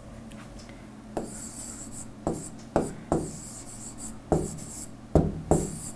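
Stylus writing on a tablet screen: about seven short, sharp taps as the pen strokes land, with faint scratchy rubbing between them.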